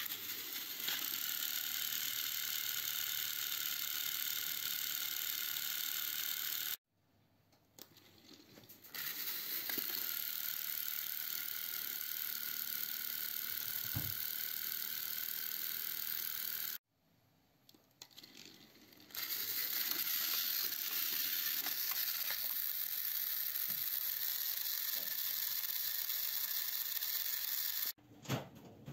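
Battery-powered Thomas & Friends toy trains running on plastic track, their small motors and plastic gears whirring steadily in three long stretches that stop abruptly twice. A single light knock comes about halfway through.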